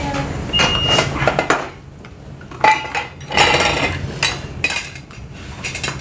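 A metal spoon clinking and scraping in a stone pot of soup and against the dishes on the table. The clinks come irregularly, and one rings briefly about half a second in.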